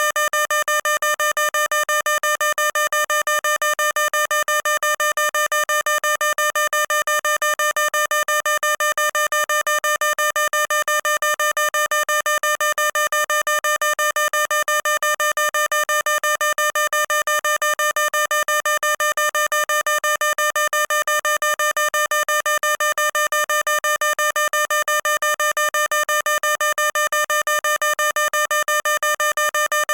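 Electronic fire alarm sounder: a loud, harsh buzzing tone, pulsing rapidly and evenly many times a second without a break or change in pitch.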